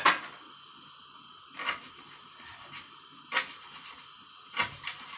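A handful of sharp, separate knocks and clicks of kitchen work, spaced a second or more apart.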